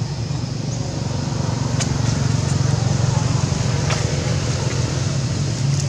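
Steady low drone of a running engine, with a few faint clicks.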